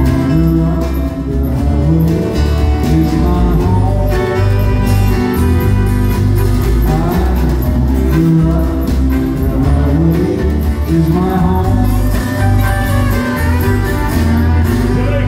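Live acoustic country band playing: strummed acoustic guitars and a fiddle over a steady beat, with voices singing.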